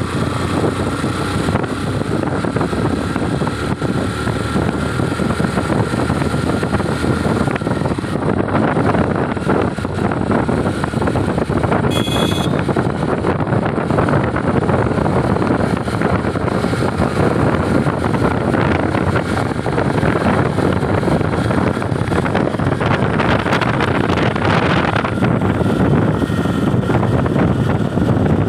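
Motorcycle ride: steady engine noise mixed with wind rushing over the microphone, loud throughout, with one short high beep about twelve seconds in.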